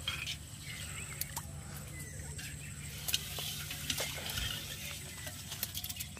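Live freshwater shrimp flicking and crackling in a metal pot, a dense scatter of small clicks and rustles, with a few sharper taps against the pot about three and four seconds in.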